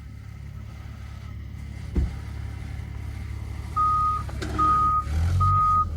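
Low vehicle engine rumble building steadily, with a single thud about two seconds in. A reversing alarm then beeps three times, evenly spaced, as the engine swells louder beneath it, typical of the heavy machine backing up and taking up the load.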